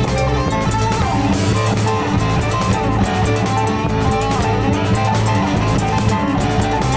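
Rock band playing an instrumental passage: guitar lines that bend in pitch, over drums and bass.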